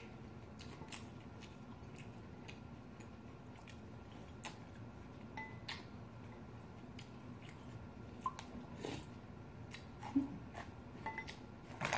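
Quiet eating sounds: chewing, with scattered light clicks of a wooden spoon and chopsticks against a ceramic bowl of green tea rice.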